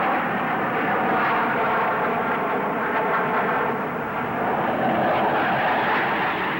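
Steady jet roar of English Electric Lightning fighters' Rolls-Royce Avon turbojets flying overhead, heard on an old film soundtrack with no high treble.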